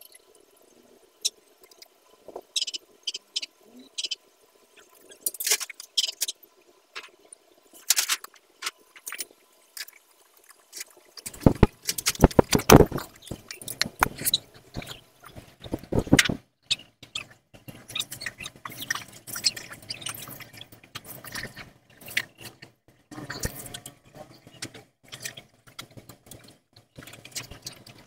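Scattered light metal clinks and taps as a stainless-steel exhaust header pipe is offered up to a Kawasaki KX250F. From about eleven seconds in, a dense, irregular crackling and popping of a gas welding torch flame working the header pipe.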